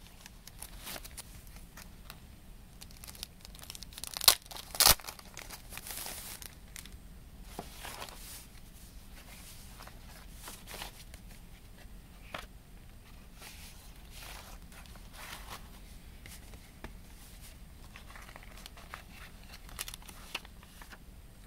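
Plastic shrink-wrap being torn off a CD package, with two sharp loud tears about four and five seconds in, followed by crinkling plastic and the rustle and slide of a cardboard jacket and paper inserts being handled.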